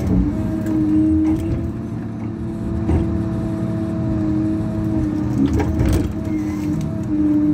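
Tigercat tracked harvester running hard, its diesel engine rumbling under a steady hydraulic whine that dips briefly a few times as the boom and harvester head swing into position. A few sharp knocks come a little past the middle.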